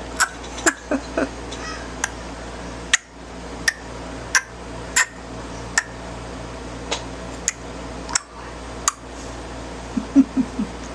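A young child clicking her tongue over and over: a dozen or so sharp clicks, one every half second to second, with a cluster of short lower sounds near the end.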